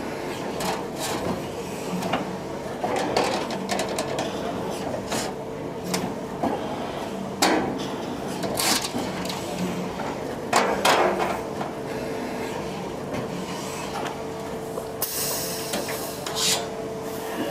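Thalmann TD metal double folder at work: a steady machine hum with irregular clicks and knocks, and a few louder scraping rushes as its folding beams swing and bend the sheet metal.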